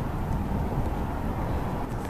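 Steady outdoor rumble of ambient noise, heaviest in the low end, as from wind and distant city sound on a camcorder's microphone.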